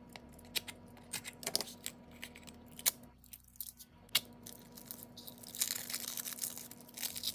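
Plastic and paper wrapping on a roll of clear stickers being slit with a craft knife and peeled off: scattered crinkles and sharp ticks, then a longer rustling tear near the end.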